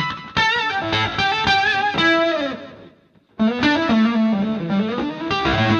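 Electric guitar played through a BOSS FZ-5 fuzz pedal: distorted single-note lead phrases with string bends and vibrato. The first phrase dies away about halfway through, and a new one starts after a short gap.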